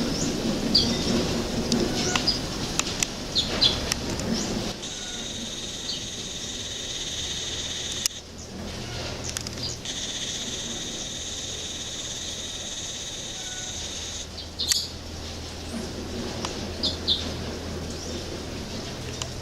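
Wild birds chirping in short scattered calls. A steady high-pitched buzz runs through the middle of the clip, breaking off briefly about eight seconds in.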